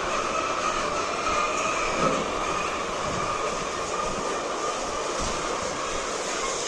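Steady machinery noise inside a poultry house, an even whir with a constant mid-pitched hum.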